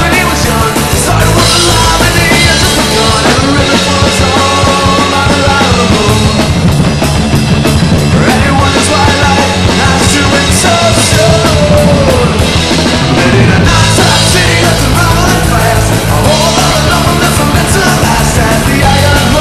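Punk rock trio playing loud: electric guitar, bass guitar and drum kit together in a continuous dense song.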